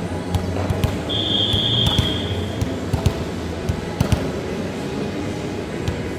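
A volleyball referee's whistle blows once, a single steady high blast about a second and a half long starting about a second in. Scattered thumps of a ball bouncing on the hard court sound around it.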